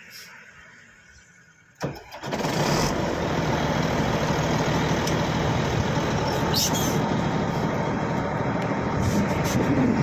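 A sharp knock about two seconds in, then the heavy diesel engine of earth-moving machinery comes in suddenly and runs loud and steady.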